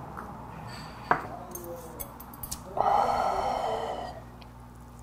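A small shot glass clinks down on the table about a second in, followed by a few light clicks of metal chopsticks. Then comes a loud, breathy 'kyaa' exhale after a shot of soju, lasting about a second.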